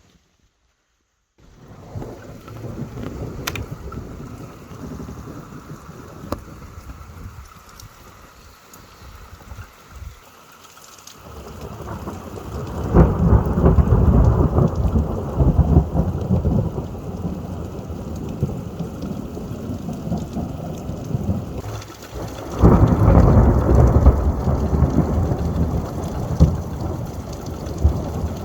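Thunderstorm: rain falling with low rolling thunder, swelling into two loud peals, one about halfway through and another near the end.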